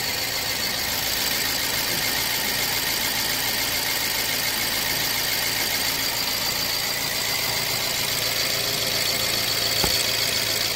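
BMW N43 four-cylinder petrol engine idling steadily, heard up close at the injector rail, just after start-up on its freshly fitted fuel injectors and running without issues. A single click near the end.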